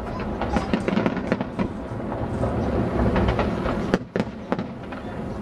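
Aerial fireworks shells bursting in quick succession: a continuous low rumble with many sharp cracks and bangs, one strong bang about four seconds in.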